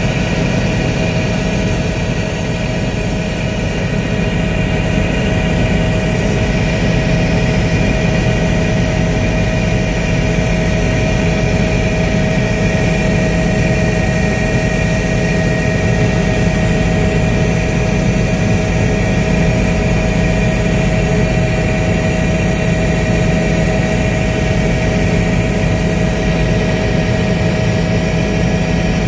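Helicopter turbine engine and rotor running steadily in flight, heard from aboard: a constant low hum with steady whining tones above it.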